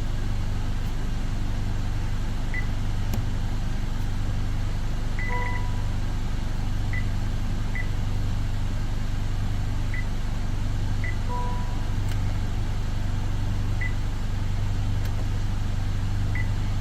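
Honda Accord cabin with a steady low engine hum and a short dashboard warning beep sounding twice, about six seconds apart. The beep comes with the electric power steering, traction control and brake system alerts.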